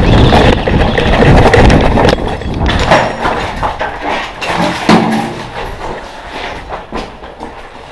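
Footsteps of a person running across grass, with a heavy rumble on the body-worn camera's microphone, then sharp steps and knocks on a debris-strewn hard floor, fading near the end.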